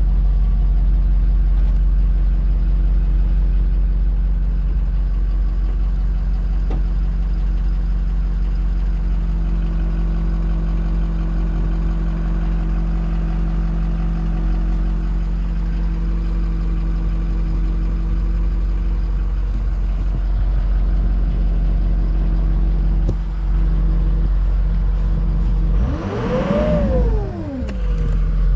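2006 Ford F-350's turbo-diesel engine idling steadily, revved once near the end, its pitch rising quickly and falling straight back to idle.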